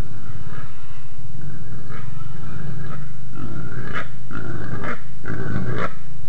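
Wild boar grunting and growling: a low, rough run of grunts, with a few sharper, louder calls in the second half.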